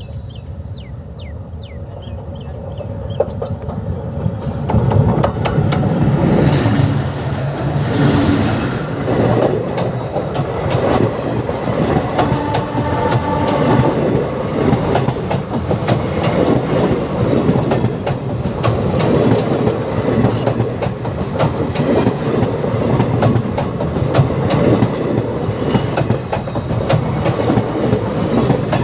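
Rajgir–Danapur Intercity Express passenger train running on the rails, its wheels clattering over the rail joints. The noise swells about four seconds in and stays loud, full of rapid clacks.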